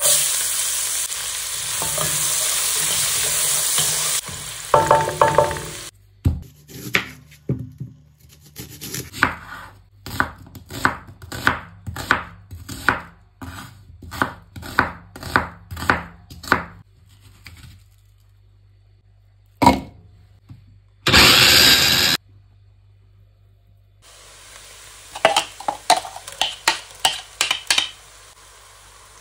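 Chopped onions hit hot oil in a pan and sizzle loudly for a few seconds. A wooden spatula then stirs them in a steady rhythm of about one and a half strokes a second, with one short, loud burst of sizzling later on. Near the end the onions fry with a lighter sizzle under more stirring.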